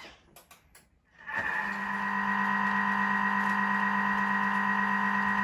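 Thermomix motor starting about a second in and running steadily on speed 3, a hum with a high whine, stirring and warming the chocolate-hazelnut spread mix. A few light clicks of the selector dial come just before it starts.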